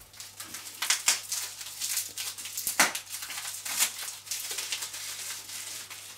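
Packaging wrapping crinkling and rustling as it is pulled open by hand, with several sharper crackles.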